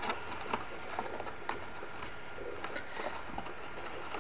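Die-cut cardstock box being handled and pressed into shape by hand: irregular light clicks and taps of card against card.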